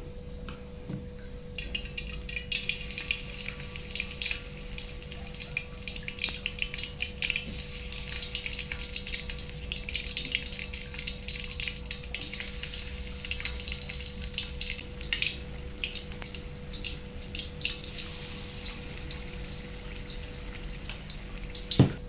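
Corn fritter batter frying in hot oil in a wok, a crackling sizzle that starts about a second and a half in, with a sharp knock just before the end.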